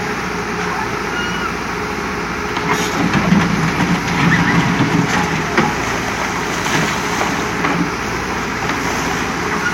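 Diesel engine of a tractor loader backhoe running under way. It grows louder and busier about three seconds in, then settles back to a steady run.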